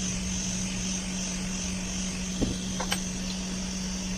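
Steady mechanical hum with a high hiss above it, broken by a low knock about two and a half seconds in and a sharp click half a second later.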